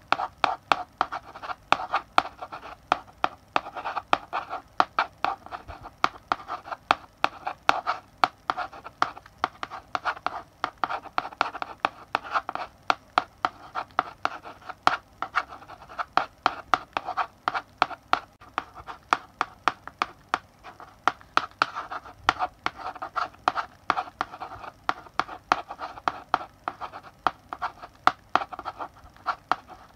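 Chalk writing on a blackboard: a steady run of sharp taps and short scratching strokes as letters are written, several per second in an uneven rhythm.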